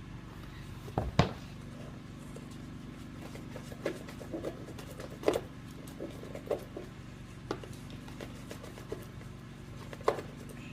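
Steady low room hum with a few scattered light clicks and knocks.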